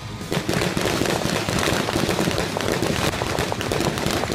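Police gunfire: a rapid, sustained volley of many shots in quick succession, beginning about a third of a second in.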